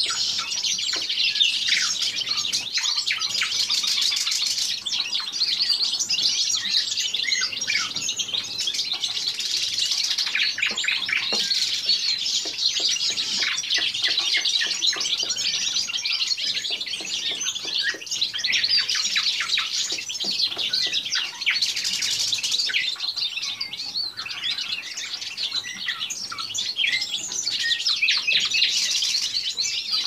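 Caged nightingale singing without a break, a dense run of rapid clicking and trilling phrases.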